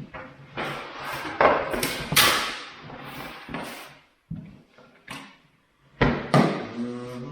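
Packaging and a hard plastic tool case being handled during unboxing: scraping and rustling for the first few seconds, then several sharp clicks and knocks, the loudest two close together about six seconds in.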